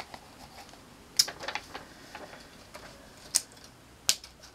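Sticker sheets and paper being handled: several short, sharp crackly clicks, spaced a second or so apart.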